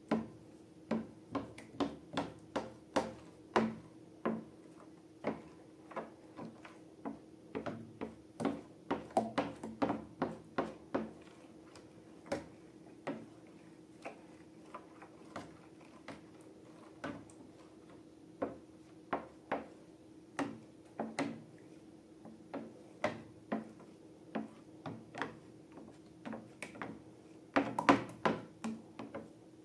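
Slime being squeezed and poked by hand, giving a string of irregular sharp clicks and pops, sometimes in quick clusters.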